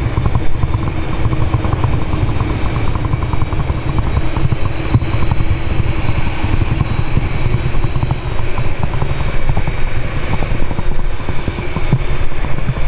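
Strong wind buffeting the microphone with a deep, gusting rumble, over the steady hum of an Airbus A380-861's four Engine Alliance GP7200 engines on final approach.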